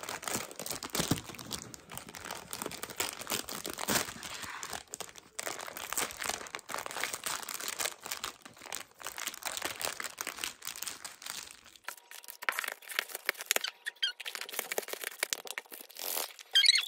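Foil-lined instant ramen packet crinkling and rustling as hands work it open and tear it along the side, then sparser crackles and a loud sharp crack near the end as the dry noodle block is broken up on the opened wrapper.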